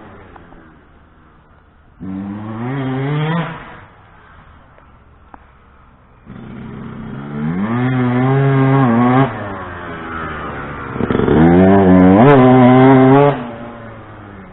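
2007 Yamaha YZ125 single-cylinder two-stroke motocross engine revving on the throttle, then easing off. It comes in three loud bursts whose pitch rises and falls, with the engine much quieter between them.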